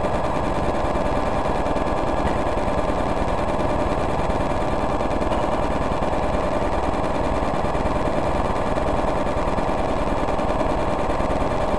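Remote-control light signals turned into sound by a light-to-sound device: several overlapping streams of very rapid electronic pulses forming a steady, dense buzz.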